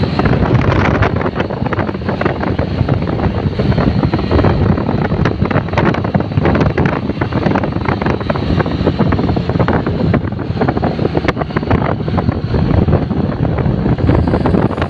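Loud wind buffeting the microphone of a camera on a moving two-wheeler, an uneven rushing rumble that gusts and dips, with the ride's road and engine noise mixed in.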